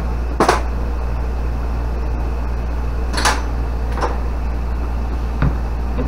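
A few light knocks and clatters as wooden boards are handled on a kitchen counter: one about half a second in, two close together around three to four seconds in, and a fainter one near the end. A steady low hum runs underneath.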